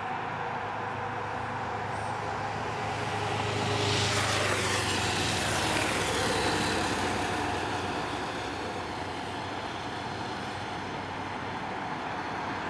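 A road vehicle passing close by: engine and tyre noise swell to a peak about four to six seconds in and fall in pitch as it goes past, then fade back into steady street traffic noise.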